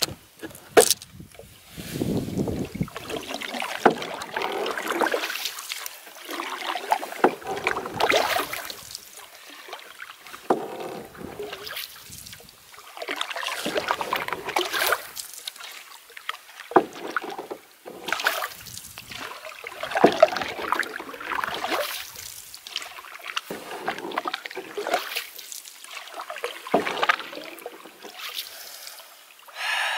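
Solo canoe being paddled: the water swishes and splashes with each stroke in swells every few seconds, and there are a few sharp knocks against the canoe.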